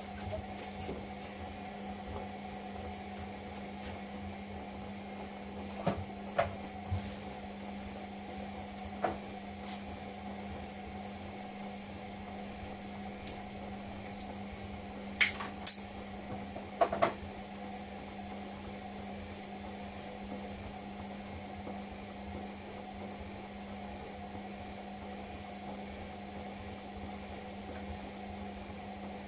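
Indesit washing machine running with a steady hum, with a few short knocks and clicks, a cluster of them in the middle.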